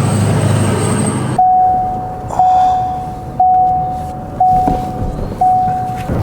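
Vehicle running for about the first second, then an electronic beeper sounding five long, steady tones of the same pitch, about one a second.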